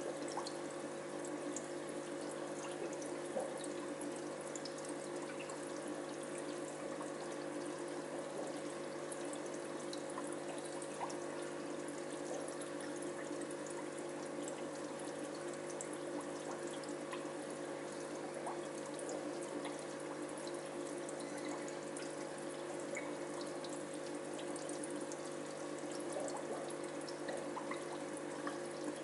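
Aquarium water running and trickling steadily, with a steady low hum underneath.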